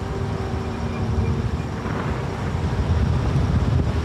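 Honda Dominator NX650's single-cylinder engine running steadily while the bike is ridden, with a rapid low pulsing. The engine is damaged: a fault the rider hears as a clacking.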